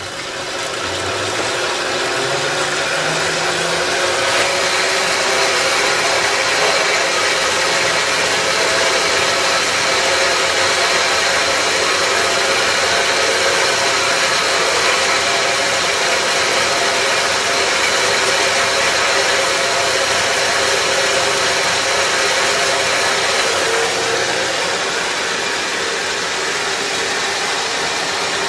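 A 4x6 horizontal metal-cutting band saw, driven by a treadmill DC motor on a variable-speed controller, running and sawing through 3/4-inch 1018 steel: a steady motor whine with blade and cutting noise that builds over the first few seconds as the speed knob is turned up. A little past three-quarters of the way through, a high tone drops out and it gets slightly quieter.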